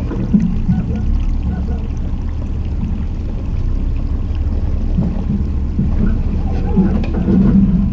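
Jeep Cherokee Trailhawk crawling slowly down a rocky trail: a steady low rumble, a little louder near the end.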